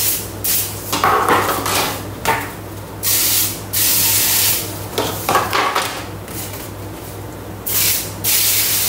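Aerosol cooking spray hissing in several short bursts as a clear plastic container is greased, the clearest burst a little after three seconds in and another near the end. Rustling and handling noises from the container come between the sprays.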